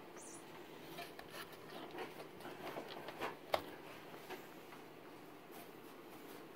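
Faint rustling with scattered light taps and clicks, one sharper click about three and a half seconds in.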